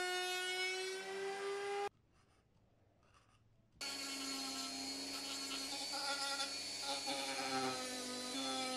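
Router table motor running with a steady whine as a small plywood piece is fed past the bit, its pitch rising slightly before the sound cuts off about two seconds in. After a couple of seconds of silence, a flexible-shaft rotary tool runs, its bit grinding and shaping the plywood edge.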